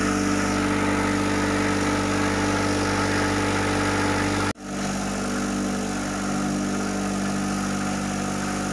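Jewellery polishing machine running steadily: a motor hum under the swish of steel polishing media churning through soapy water. A brief dropout about four and a half seconds in, after which it runs on slightly quieter.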